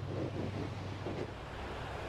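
Wind blowing across the microphone, a steady low rumble and rush, with waves washing in behind it.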